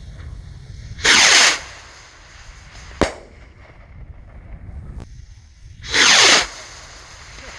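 Firework rockets launching and bursting: a loud half-second whoosh as one rocket takes off, a sharp bang about two seconds later as it bursts in the air, then a second rocket whooshing up near the end.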